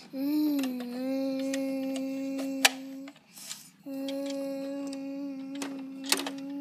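A child humming one steady low note, like a motor, held about three seconds after a small wobble in pitch at the start, then after a short breath held again for about four seconds. Sharp plastic clicks from a toy garbage truck's rear can lifter cut in twice.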